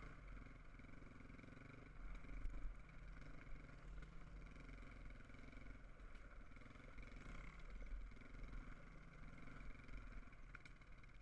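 Quad bike (ATV) engine running faintly at a steady cruise, swelling a little in level now and then.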